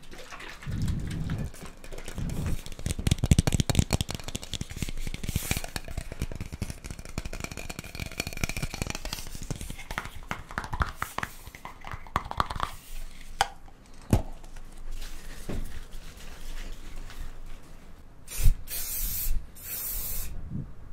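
Close crackling and rustling. Near the end come two short hisses of hair spray, about a second apart.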